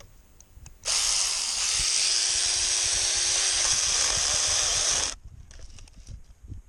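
Hancaner cordless mini chainsaw running: its electric motor and chain start about a second in, run steadily for about four seconds, then cut off suddenly.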